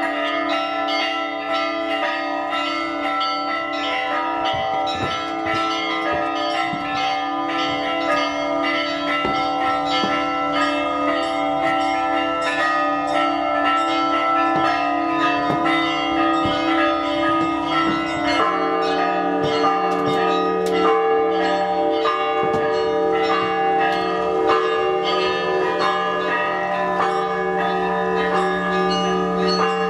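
Church bells ringing a continuous peal, many bells struck in quick succession over one another's lingering tones. About eighteen seconds in the pattern shifts and a deeper bell tone comes in strongly.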